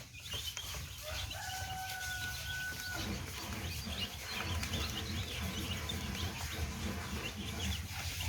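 Baby chicks peeping, many short high chirps overlapping throughout. About a second in, one long steady call is held for about two seconds.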